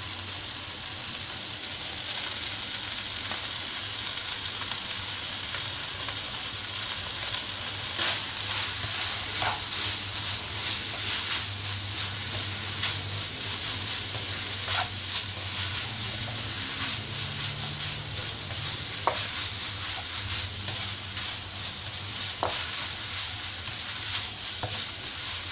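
Fried rice and fresh vegetables sizzling in a non-stick wok as they are stir-fried with a spatula: a steady frying hiss, louder from about eight seconds in, with occasional knocks and scrapes of the spatula on the pan.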